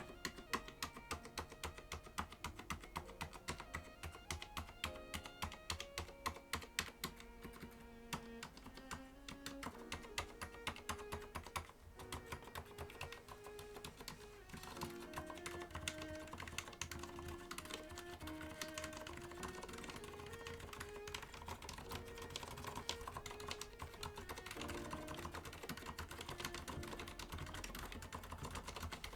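Keystrokes on a mechanical keyboard with Cherry MX Silent Red (silent linear) switches. Separate key presses come first, and about halfway through they turn into faster, continuous typing. Soft background music plays along.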